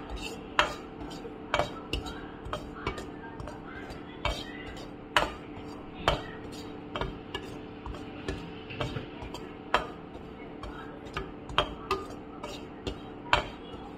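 Perforated metal spatula scraping and clinking against a metal pan while semolina is dry-roasted, irregular sharp taps about once or twice a second, over a steady low hum.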